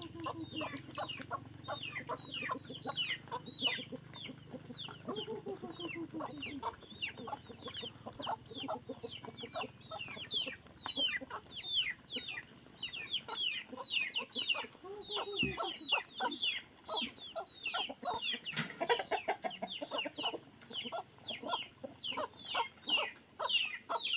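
Farmyard chickens clucking and cheeping: a dense run of short, high chirps, several a second, each falling in pitch, with a few lower clucks. A low steady hum underneath fades out about seven seconds in.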